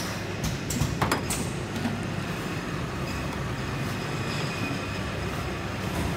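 Steady mechanical running noise with a low hum, from a machine's motor or fan. A few sharp clicks come about a second in, as the glass jar is handled on the table.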